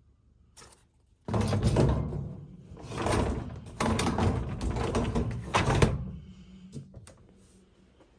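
Dishwasher being handled, a loud rattling, rolling clatter like a rack run along its rails, starting about a second in, picking up again midway and dying away after about six seconds.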